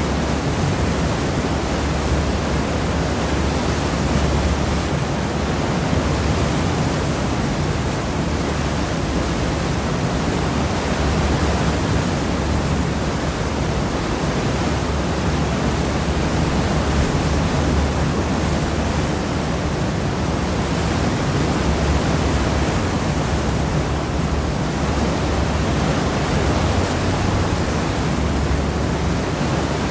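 Sea wash churning in the wake of a cross-channel ferry, heard from the stern: a steady, unbroken rushing of water with a heavy low rumble underneath.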